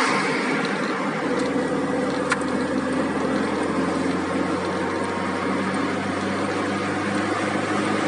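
Tofaş Doğan SLX's four-cylinder petrol engine running steadily while the car cruises in a high gear, heard inside the cabin with road noise; the engine is not straining.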